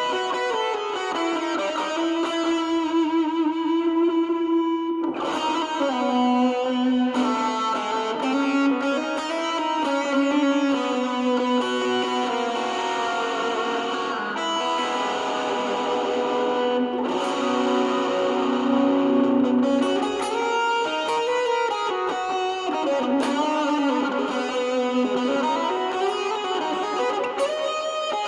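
Electric guitar playing a lead line through distortion and overdrive with hall reverb and a Strymon Brigadier delay. Sustained notes bend and waver in pitch, and the reverb and delay trails blur each note into the next.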